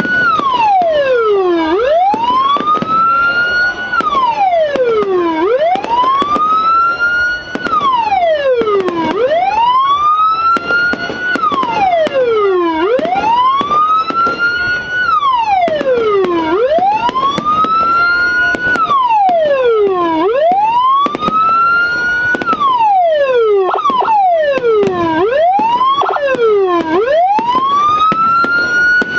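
Loud electronic police-escort (patwal) siren from an aftermarket tone module through a TOA horn speaker, sounding a wail. The pitch drops quickly from high to low and climbs slowly back, about every three and a half seconds, the cycles coming a little quicker near the end.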